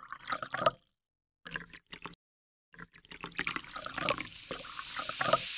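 Sound effects of an animated logo intro that sound like liquid: short splashing, dripping bursts broken by two spells of dead silence. From about halfway a denser run of splashes builds, and a steady hiss sets in near the end.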